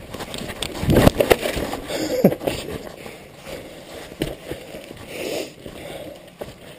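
Mountain bike riding along a wooden boardwalk: the tyres knock on the timber and the bike rattles. The loudest knocks come about a second in and again about two seconds in.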